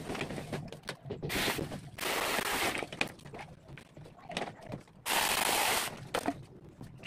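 Cordless battery mini chainsaw running in three short bursts of about a second each as it cuts into branches. Twigs and leaves crackle and snap between the bursts.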